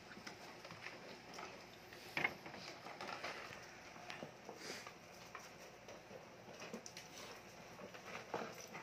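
German Shepherd puppies eating from food bowls on concrete: scattered small clicks and taps of the bowls and paws with chewing, and one sharper clack about two seconds in.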